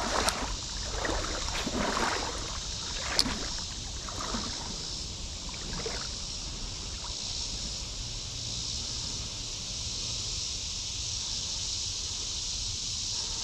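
Creek water running, with a steady high insect drone over it. A few splashy rustles and one sharp click come in the first few seconds.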